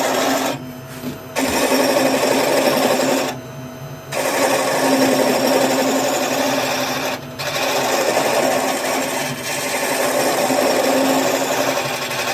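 Wood lathe running with a turning tool cutting a spinning wooden spindle: a steady hiss and rattle of shavings being cut over the lathe's hum. The cut stops briefly about a second in and again at about three and a half seconds, with a short break near seven seconds, then resumes.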